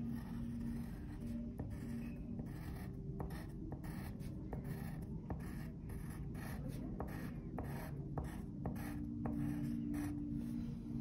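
Pencil scratching on paper in many short strokes as letters are traced, over a steady low hum.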